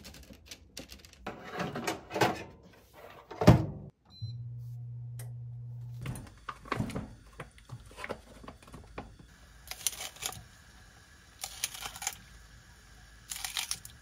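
Kitchen food-prep handling noises: plastic snack packaging rustling and a knock, a short beep followed by about two seconds of steady low hum, then frozen tteokbokki being poured into a pot and kitchen scissors snipping green onion three times near the end.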